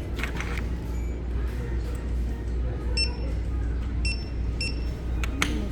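Short, high electronic beeps at a store checkout as items are rung up, three in all, about three, four and four and a half seconds in, over a steady low hum.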